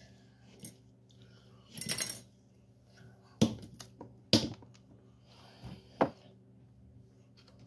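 A short rustle, then three sharp clicks or taps spaced unevenly over a few seconds, over a faint steady hum.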